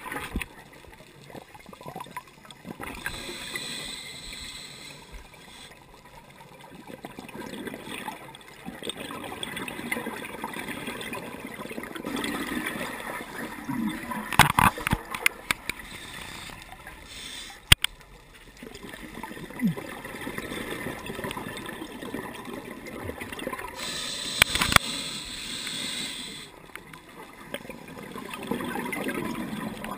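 Underwater sound of a scuba diver breathing through a regulator: hiss and gurgle, with louder spells of exhaled bubbles roughly every ten seconds. A few sharp clicks stand out, one just before the middle.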